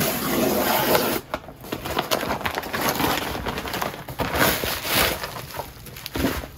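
Brown paper mailer being torn open by its pull tab, with paper and bubble wrap rustling and crinkling as the contents are pulled out.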